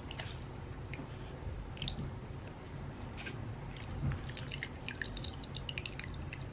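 Wet gel balls dropped by hand into the back of a translucent plastic gel-blaster magazine: scattered small wet ticks and clicks, coming more thickly in the last couple of seconds.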